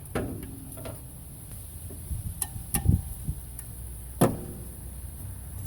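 A few scattered metallic clinks and knocks of hand tools and truck parts, some ringing briefly; the loudest knock comes about four seconds in.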